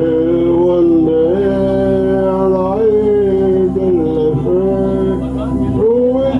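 A man singing a slow ballad into a microphone, drawing out long held notes that slide from one to the next, over a steady sustained accompaniment tone.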